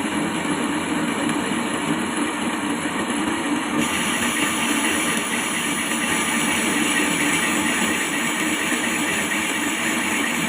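Metal lathe running steadily with a constant motor and gear hum; about four seconds in a harsher, hissier noise joins and holds.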